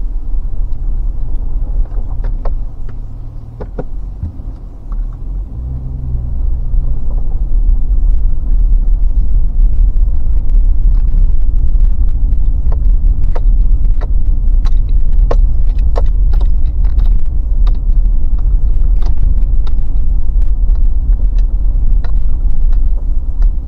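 Car driving on a gravel and dirt road, heard from inside the cabin. A steady low rumble of engine and tyres grows louder a few seconds in, with scattered sharp ticks of gravel under the tyres.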